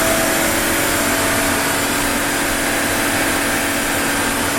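Onefinity CNC router running a cutting job in wood: a steady spindle whine over constant cutting and machine noise.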